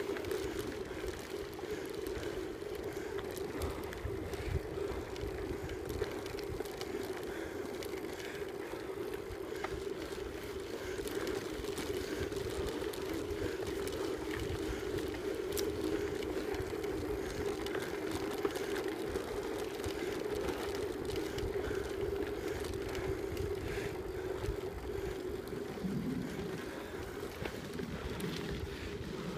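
Bicycle ridden fast along a gravel forest track: a steady hum from the moving bike, with irregular knocks and rattles as it rolls over the rough surface.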